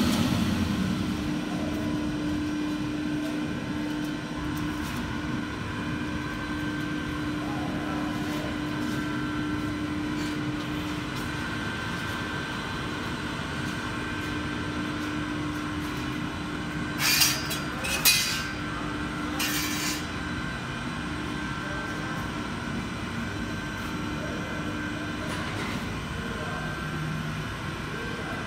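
Steel coil slitting line running: a steady mechanical drone with a held hum, as the circular slitter knives cut galvanized sheet into narrow strips and the recoiler winds them up. About two-thirds of the way through there are a few short, loud bursts of noise.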